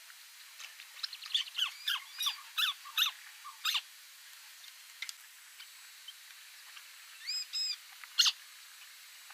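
White-browed crake calling: a quick run of about nine loud, downward-sliding notes lasting nearly three seconds, then after a pause two short arched notes and one sharp note near the end.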